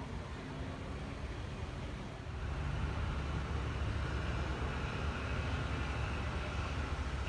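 Steady street traffic noise, a low rumble of car engines with a hiss of city sound above it, growing louder about two seconds in.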